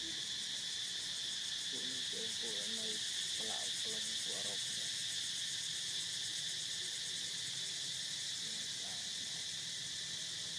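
A steady, high-pitched chorus of insects shrilling in the trees.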